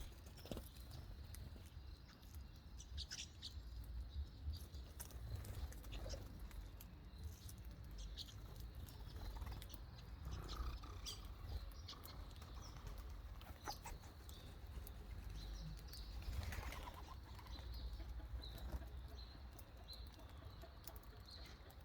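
Birds fluttering their wings and moving about, with scattered small clicks and a few faint chirps over a low steady rumble.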